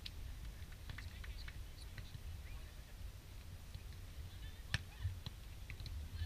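Sharp smacks of a beach volleyball being struck by hand, a few light ones and one loud hit about five seconds in, over a steady low rumble and faint distant voices.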